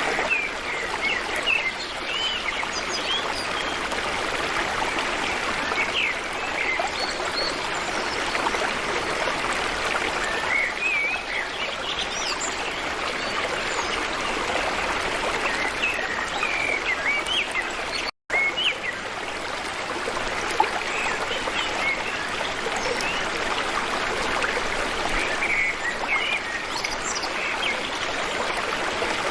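Steady flowing-stream water with small birds chirping in short, twisting calls throughout; the sound cuts out completely for an instant about two-thirds of the way through.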